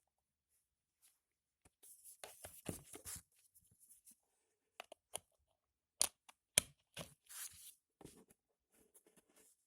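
Small object being handled: a stretch of rustling and scraping, then two sharp clicks about six seconds in, followed by more brief rustling and faint clicks.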